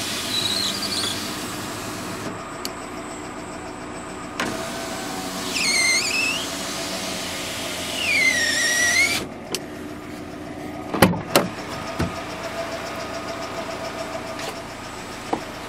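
Electric power window motor on a GAZ Gazelle Business truck whining as the glass moves, twice, over the steady idle of the truck's 2.9-litre inline-four. A few sharp clicks and knocks come about two-thirds of the way through as the door is opened.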